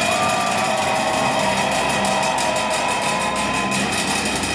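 Industrial band playing live: a dense, machine-like wall of noise with a rapid fine pulse, sustained wavering tones above it and steady bass notes beneath.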